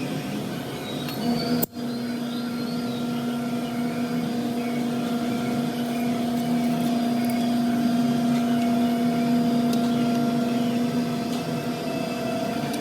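A steady mechanical hum from a running motor, with a brief dropout a little under two seconds in.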